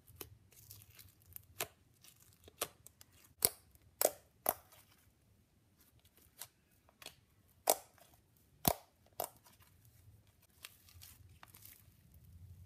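Blue foam-bead slime being poked and squeezed by hand, giving irregular sharp pops and crackles, louder a few seconds in and again past the middle.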